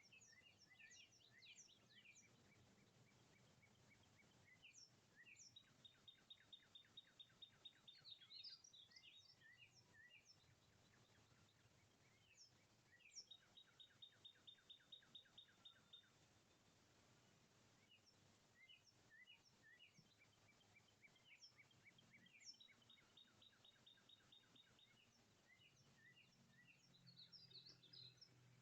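Faint songbirds calling: scattered chirps from several birds, with a quick trill of evenly repeated notes that comes three times.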